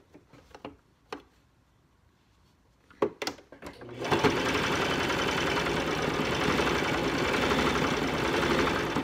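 A few light clicks, then about four seconds in a Brother electric sewing machine starts up and runs steadily, stitching through folded cloth.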